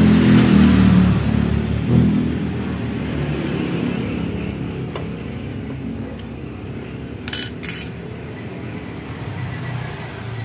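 A motor vehicle engine running, loudest at first and slowly fading. Two short clicks come about seven and a half seconds in.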